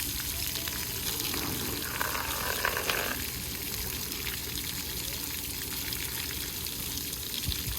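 Steady rush of splashing, running water, with a brief louder splash about two to three seconds in.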